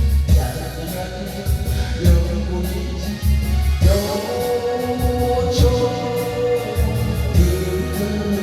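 Korean trot song with a steady beat and a woman's or man's singing voice holding a long note in the middle.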